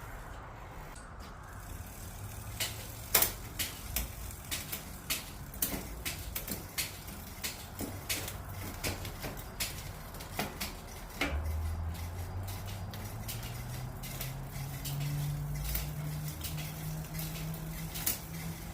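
A long series of sharp metallic clicks, roughly one or two a second, from a mountain bike's rear wheel and drivetrain being refitted and worked by hand. From about eleven seconds in, a low engine hum rises slowly in pitch beneath the clicks.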